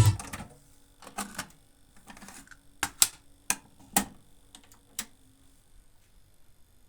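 A run of about ten sharp mechanical clicks and clacks over some four seconds, irregularly spaced and loudest near the middle, from a TEAC V-870 cassette deck's controls and cassette compartment being operated after playback stops.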